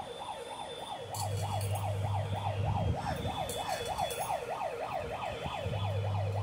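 A siren yelping rapidly up and down, about four sweeps a second. A low hum comes in about a second in, drops out near three seconds and returns near the end.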